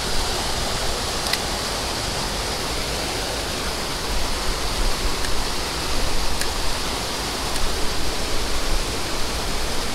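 Steady rush of fast-flowing, high stream water, an even hiss with a low rumble beneath.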